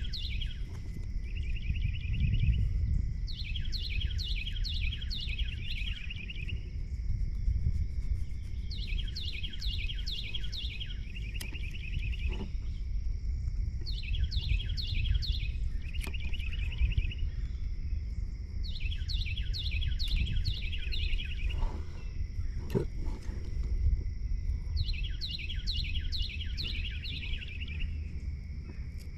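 A songbird singing the same short song over and over, about every five seconds: a quick run of falling notes followed by a short trill. Under it run a steady high hum and a low rumble, with a few faint clicks.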